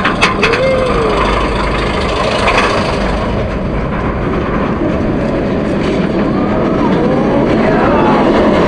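Roller coaster train heard from a rider's seat: loud rushing wind and the wheels running on the track, with a few sharp clacks in the first half second.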